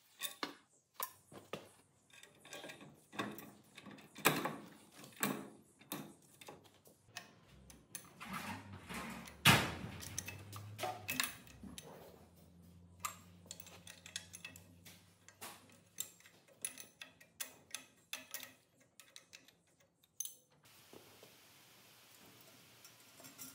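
Spanners and bolts clinking and knocking on metal as a turbocharger is unbolted from the exhaust manifold: a string of sharp clicks and knocks, the loudest about halfway through. Near the end the clinking stops.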